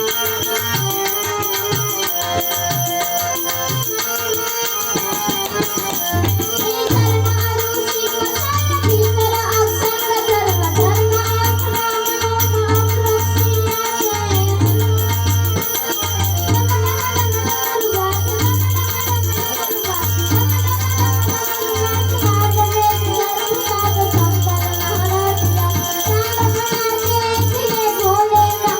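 Folk music with a wavering melody over a low drum beat about once a second, and jingling rattle-type percussion throughout.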